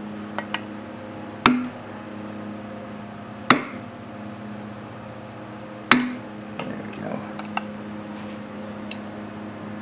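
Three sharp metal-on-metal strikes about two seconds apart, each ringing briefly, on a thin tool held against the connecting rod inside an open Briggs & Stratton single-cylinder crankcase. Lighter clinks of metal follow.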